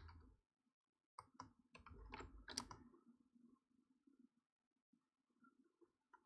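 A few faint clicks of a computer mouse and keyboard, bunched a little over a second in and again around two to two and a half seconds in; otherwise near silence.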